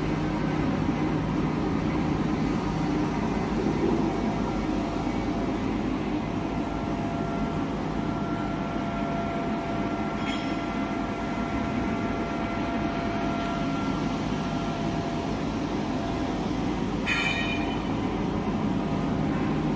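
Tissue paper slitting and rewinding machine running: a steady mechanical noise with a low hum and a faint steady whine. There is a brief click about ten seconds in and another short sharp sound near the end.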